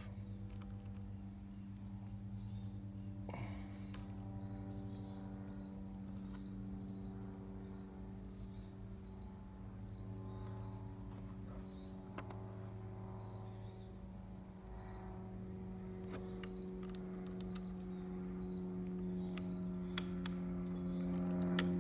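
Steady outdoor insect chorus: crickets chirping in a regular, even rhythm over a continuous high-pitched buzz, with a low steady hum beneath.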